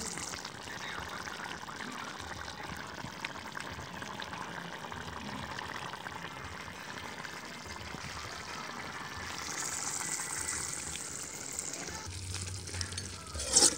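Curry gravy boiling in a large iron kadai over a wood fire: a steady bubbling hiss. A sharp knock sounds near the end.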